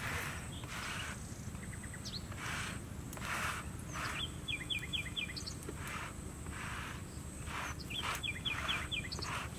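A bundle of lemongrass stalks swished over wet, heated stone slabs in repeated brushing strokes, about one a second. A bird sings two short phrases of quick chirps, and a faint steady high whine runs underneath.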